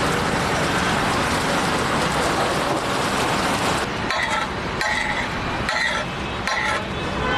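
Tawa pulav chutney sizzling steadily on a large flat iron tawa. From about four seconds in, a flat metal spatula scrapes across the tawa in repeated strokes, about one a second.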